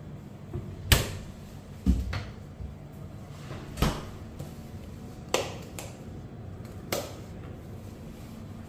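A side-by-side refrigerator door is pushed shut with a sharp thud about a second in. Four more knocks follow over the next six seconds, the next loudest about a second later.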